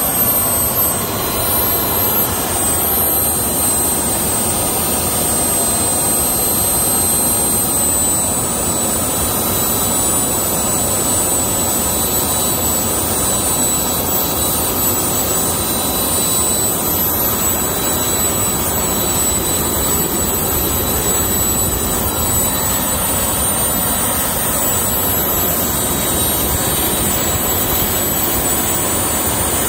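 Three small turbojet engines running together at a steady setting: a constant rush of jet noise with thin, high-pitched whining tones held steady above it.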